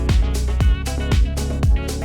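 Electronic dance background music with a steady four-on-the-floor kick drum, about two beats a second, under synth chords.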